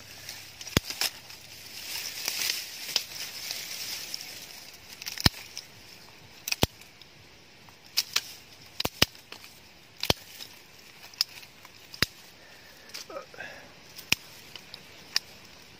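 About fifteen sharp clicks and cracks at uneven intervals, with a hiss in the first few seconds that dies away.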